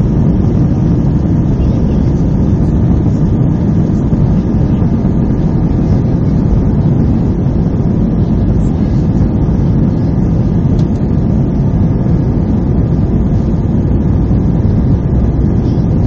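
Airbus A319 airliner heard from inside the cabin over the wing as it rolls along the runway: a loud, steady rumble of engines and rolling noise with a faint whine above it.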